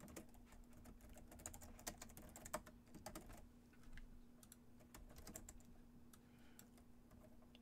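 Faint typing on a computer keyboard: irregular key clicks in short runs, over a faint steady hum.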